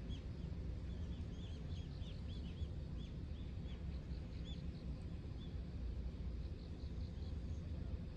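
Low, steady wind rumble on the microphone with a small bird chirping in short, high, repeated notes, many in the first three seconds and only a few after.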